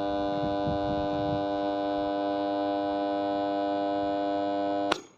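Burnt-out electric lawn mower motor with a failed winding, left on power and giving a loud, steady electrical buzz with a faint crackle under it, as it burns itself out. The buzz stops suddenly with a click near the end.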